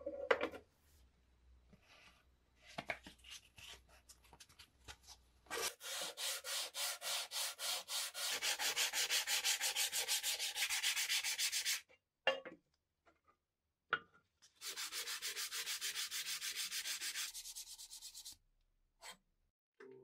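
Sandpaper rubbed by hand over a sheet-metal lighter part: quick, even back-and-forth strokes, about three a second, in two spells, the first about six seconds long and the second about four. Before them come a few light clicks and taps of the metal being handled.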